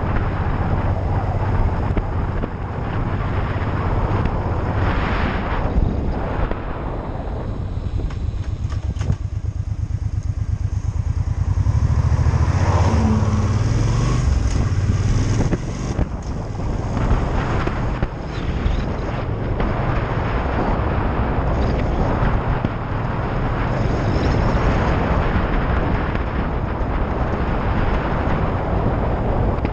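Motorcycle engine running as the bike rides along at road speed, with wind noise over the microphone. The low engine note grows louder for a few seconds about twelve seconds in.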